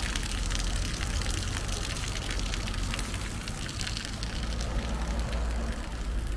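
Fountain water splashing and trickling down stepped stone basins into a pool: a steady splashing hiss, with a low rumble underneath.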